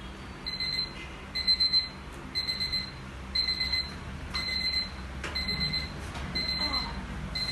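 Electronic alarm clock beeping: short groups of rapid high-pitched beeps repeating about once a second.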